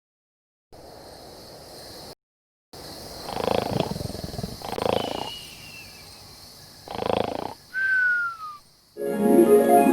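Three roars of a large animal, each about a second long and about a second and a half apart, over a steady hiss, with a short falling whistle near the end. Music comes in just before the end.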